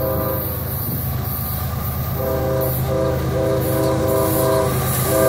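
Diesel locomotive's multi-chime air horn: a held blast cuts off about half a second in, then after a gap it sounds again from about two seconds in as a string of short and longer blasts. Under it runs the steady low rumble of the train, growing louder.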